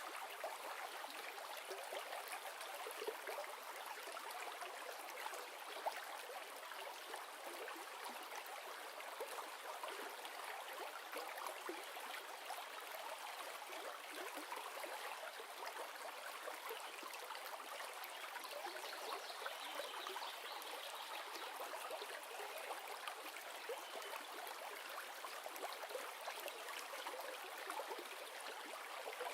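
River running steadily over rocks, an even rushing and trickling of flowing water.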